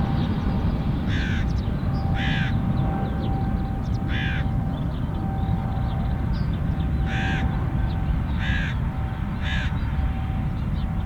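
A crow cawing, about six harsh calls at uneven intervals, over a steady low rumble.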